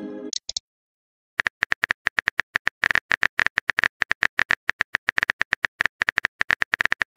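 Phone keyboard typing sound effect: a fast, irregular run of light clicks that starts about a second and a half in. At the very start, the tail of a chime-like message notification fades out.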